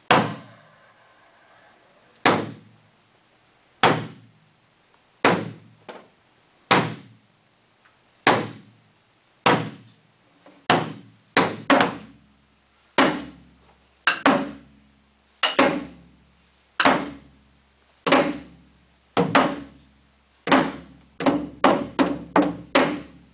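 Taiko drum struck with wooden sticks: single heavy strokes about a second and a half apart, then strokes in pairs, and a quicker run of beats near the end.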